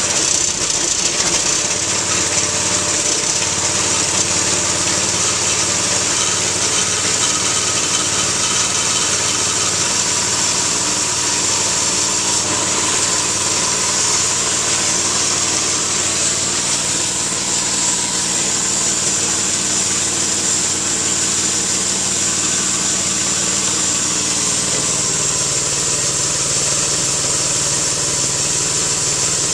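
Harbor Freight Predator 212cc single-cylinder four-stroke engine running steadily a little above idle, just after its first cold start, turning a belt-driven military air compressor pump. Its sound shifts slightly about 25 seconds in.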